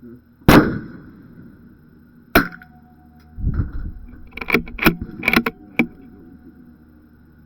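A Bergara B14R .22 LR bolt-action rifle fires once about half a second in, the crack trailing off. A second, shorter sharp crack follows about two seconds later. Then comes a quick run of metallic clicks and clacks as the bolt is worked for the next round.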